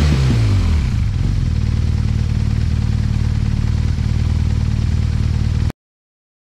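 BMW R1200RT's horizontally opposed twin-cylinder engine through its factory Akrapovic silencer, revved with the bike standing still. A throttle blip drops back to idle about a second in, then the engine idles steadily until the sound cuts off abruptly near the end.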